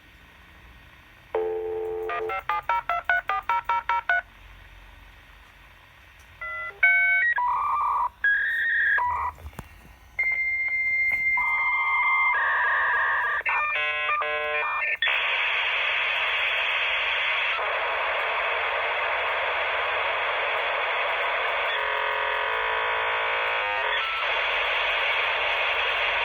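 Dial-up modem connecting, heard over a telephone line: a dial tone, a quick run of touch-tone digits, then a series of answer and handshake tones and beeps, and from a little past halfway a loud steady hiss as the modems negotiate the connection.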